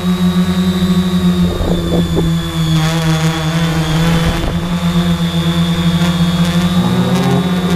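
Multirotor drone's motors and propellers running with a steady buzzing hum and a thin high whine, the pitch shifting briefly near the end.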